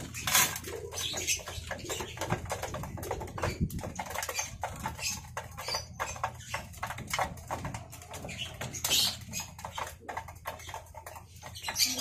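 Racing pigeons pecking grain from a feeder trough: a steady run of quick, irregular clicks and taps.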